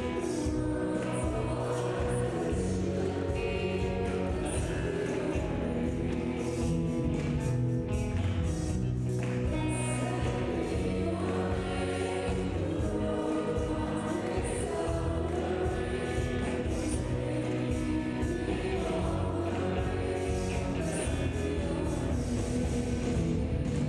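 Church praise band and singers performing a gospel-style worship song, with voices sung together over the band's accompaniment.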